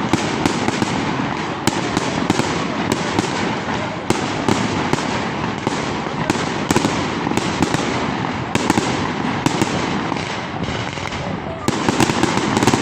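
Fireworks going off: an irregular run of sharp bangs and crackles, several a second, over a continuous hiss, with a dense volley of bangs near the end.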